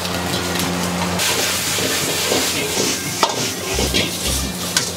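Chicken pieces, onion and green capsicum sizzling in a hot wok while a metal ladle stirs and tosses them, with sharp clanks of the ladle against the wok. The sizzle swells about a second in.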